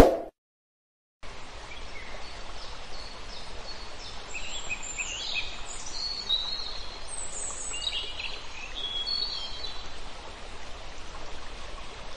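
Outdoor nature ambience: several birds chirping and calling over a steady rushing hiss. A brief bell-like ding sounds right at the start, followed by a second of silence before the ambience comes in.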